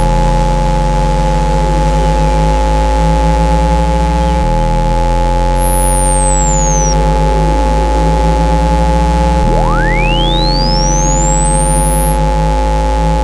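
Synthesized phone-speaker water-ejection tones: steady pure tones layered over deep tones that change pitch in steps every few seconds, with a pulsing buzz beneath. A high whistle sweeps downward about a third of the way in, and near the end another sweep rises from low to very high.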